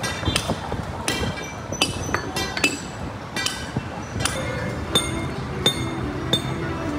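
A run of bright, ringing struck tones like chimes or bells, about one or two a second, over a steady noise bed; a low steady tone joins about five seconds in.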